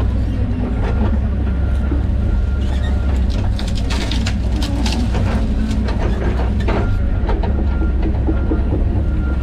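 John Deere 130G excavator's diesel engine running steadily under load, with repeated knocks and clanks from the machine working.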